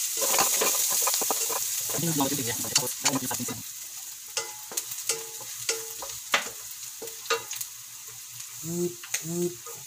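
Chopped garlic and onion sizzling in hot oil in a wok, stirred with a wooden spatula that scrapes and knocks against the pan. The sizzle is loudest for the first three seconds or so, just after the onion goes in, then eases while the spatula keeps clicking about twice a second.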